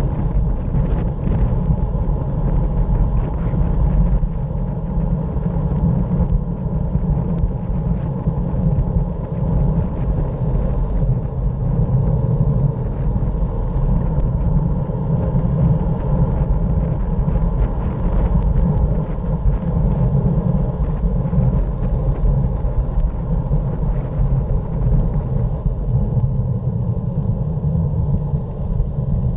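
Steady low rumble of wind buffeting the bike-mounted camera's microphone as a road bike descends at speed.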